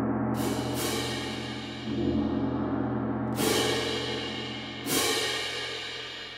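Sampled orchestral gong and cymbals from a CineSymphony Lite percussion patch being auditioned. A low gong rings on and is struck again about two seconds in, while bright cymbal crashes come in twice in the first second, then about three and five seconds in, each ringing away.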